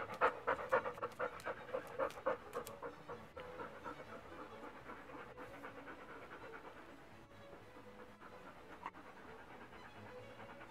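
A dog panting rapidly after a long walk, about four breaths a second. The panting is loud for the first few seconds and then goes on more faintly.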